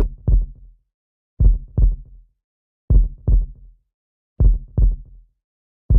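Heartbeat sound effect: paired low thumps, lub-dub, repeating about every second and a half with silence between.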